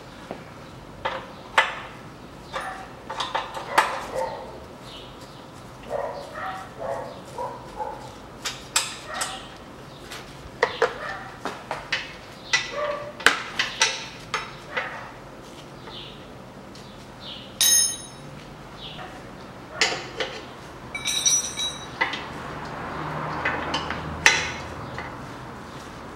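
Metal tools clicking, knocking and clinking against an air compressor's fittings as they are worked with a wrench, with two bright metallic rings past the middle. A dog barks a few times in the first half.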